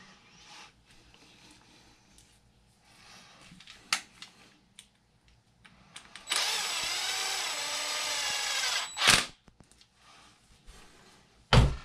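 Electric screwdriver with a long hex bit running steadily for about two and a half seconds, driving a screw into the RC truck's chassis. A click follows, and there is a sharp knock near the end, amid light handling of parts.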